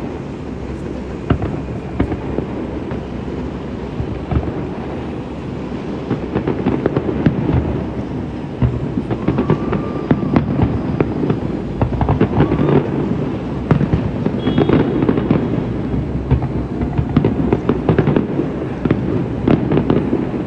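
Fireworks display: a dense run of bangs and crackles from aerial shells, with a deep rumble beneath, growing busier about six seconds in.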